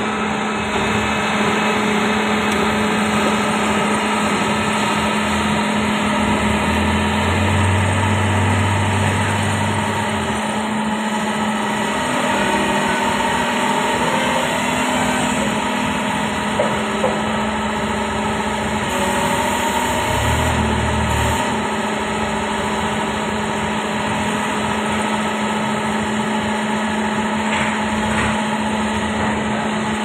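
Doosan 500LCV excavator's diesel engine idling steadily. A lower drone comes in twice for a few seconds.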